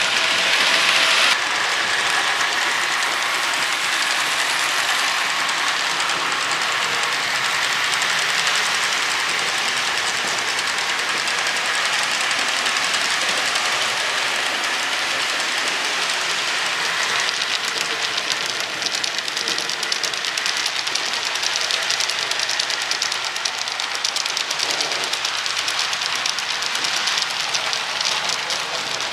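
HO scale model ore train of hopper cars rolling past, a steady rush of small metal wheels on the track. Rapid fine clicking over the rail joints grows clearer about two-thirds of the way through.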